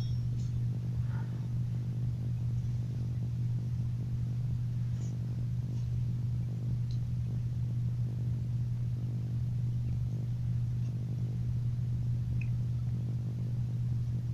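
Steady low hum, unchanging, with nothing else over it.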